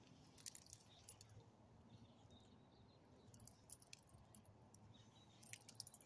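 Faint, scattered clicks and jingles of a dog's metal collar tags as the dog moves about sniffing the ground.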